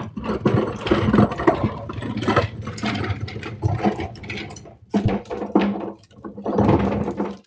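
A dog going at a ball: loud, rough, noisy scrabbling and mouthing in several long bursts, with short breaks about five and six seconds in.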